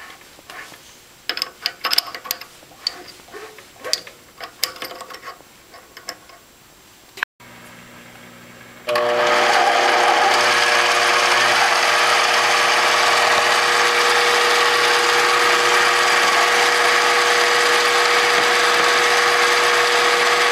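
Light metallic clicks and clatter as a 3/8-inch drill bit is fitted in the lathe's tailstock drill chuck. About nine seconds in, the Microlux 7x14 mini lathe starts up and runs steadily with a constant whine.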